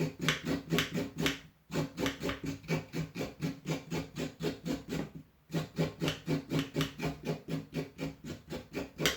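A blade scraping the skin off a carrot in quick, even strokes, about four a second, with two short pauses.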